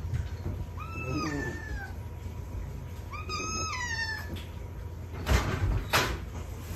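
A cat meowing twice: two drawn-out meows, each about a second long, that fall in pitch at the end. Near the end come two sharp knocks less than a second apart, louder than the meows.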